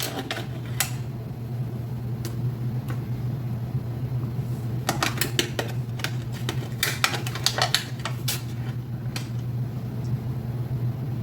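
Scattered light clicks and taps of stuffed pasta shells and a utensil being handled and set into a baking pan, in small clusters with a busier stretch about halfway through. A steady low hum runs underneath.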